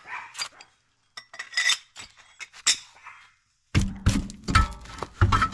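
Lug nuts and a wrench clinking as the last nuts come off a wheel, with scattered metal clicks and rattles, then a dense run of knocks and heavy thuds from about two-thirds of the way in as the wheel is taken off the hub.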